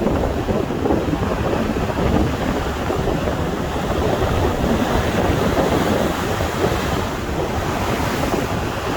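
Rough sea waves surging and breaking against the shore, with strong wind buffeting the microphone.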